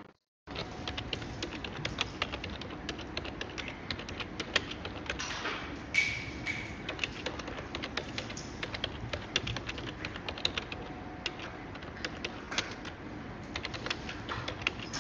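Irregular typing on a computer keyboard, a stream of quick key clicks, with a brief high tone about six seconds in.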